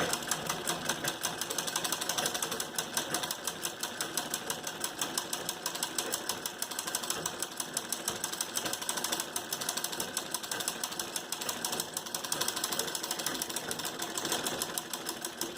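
Sewing machine running steadily, a rapid even clatter of needle strokes. It is stitching a test seam with the bobbin case's tension screw just tightened, the cure for knotted, loopy upper stitches caused by a loose bobbin.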